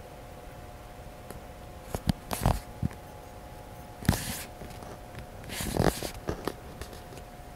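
Several short rustles and soft knocks, about two seconds in, at four seconds and again near six seconds, over a faint steady hum.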